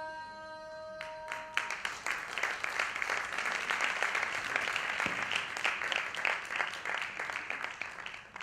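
Indian classical music ends on a sustained note about a second in, and an audience breaks into applause that tapers off near the end.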